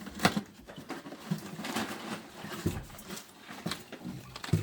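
Scattered clicks and knocks of a sump pump and its plastic piping being shifted by hand in the pit to sit it level, with the sharpest knocks near the start and just before the end. A few short, low hum-like sounds come in between.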